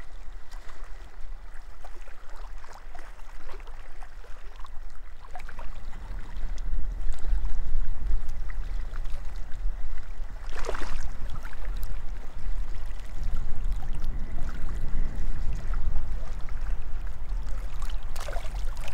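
Wind buffeting the microphone in a steady low rumble over small waves lapping at a lakeshore, the rumble growing stronger about five seconds in, with one brief higher sound about ten seconds in.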